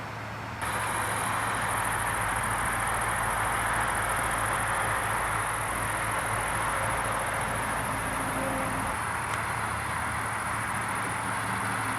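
Crickets chirring in a steady high-pitched band over a broad, even hiss, starting abruptly about half a second in.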